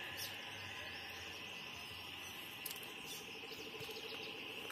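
Steady chorus of frogs and insects calling after heavy rain: a continuous high trill with a faint, quickly pulsing lower note beneath it.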